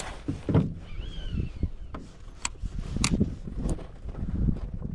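Low rumble of wind and water around a small fishing boat, with several sharp clicks and knocks scattered through it and a faint short whistle that rises and falls about a second in.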